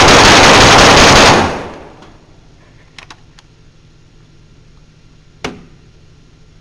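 Rapid-fire string of 9mm shots from a Glock 26 pistol, so fast and loud that they run together into one continuous clipped blast, ending about a second and a half in and dying away. A few faint clicks follow, and a single sharper crack about five and a half seconds in.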